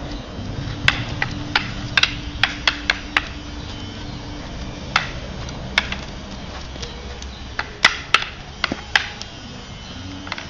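Arnis sticks clacking against each other in sparring strikes and blocks, sharp single knocks in quick runs: about eight in the first three seconds, two on their own around the middle, and another five or six near the end.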